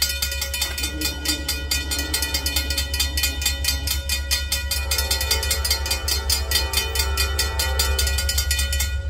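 Freight train hauled by an SD60E, a Dash 9 and an ET44AC diesel locomotive passing, with a steady deep rumble and rapid, even clicking.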